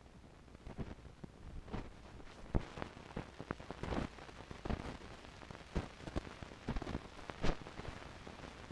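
Crackle and irregular sharp pops from dust and scratches on a 16mm film print's soundtrack, over a faint hiss and a steady low hum.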